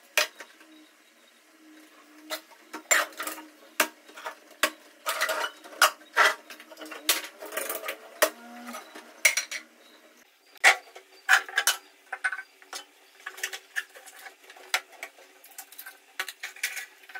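Stainless steel kitchen storage containers clanking and clinking against each other and the counter as they are handled and set down, in many irregular knocks.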